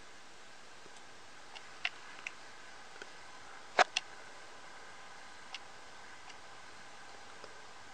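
A few scattered light clicks over a faint steady hiss, the loudest a close pair of sharp clicks about four seconds in.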